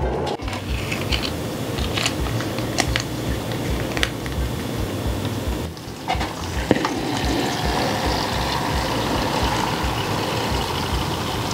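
Plastic sauce sachets crinkling and being squeezed out over instant cup noodles. About six seconds in, a steady stream of hot water is poured from a kettle into the paper cup.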